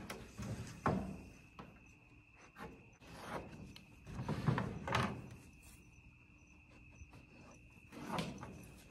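Crickets chirring steadily, with a few scattered knocks and scuffs from boards and tools being handled at a work table.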